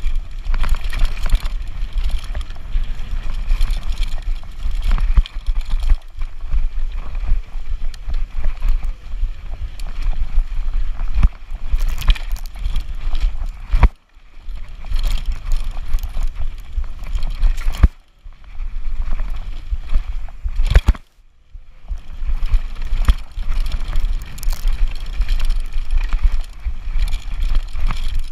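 E-bike ridden fast over a bumpy forest dirt trail: wind buffeting the handlebar-mounted camera's microphone, with frequent knocks and rattles from the bike jolting over bumps. The noise drops away briefly three times.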